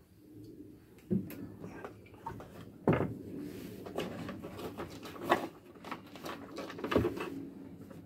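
Knocks and clunks of a boat steering helm and its screws being handled and fitted inside a wooden console. A few sharper knocks about every two seconds come over steady rustling and scraping.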